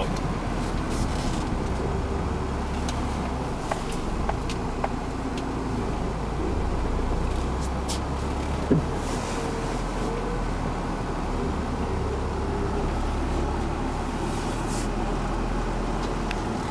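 Four-wheel-drive vehicle running and driving on a rough off-road trail just after being pulled free of mud. From inside the cabin it is a steady low rumble with a few short knocks, the sharpest nearly nine seconds in.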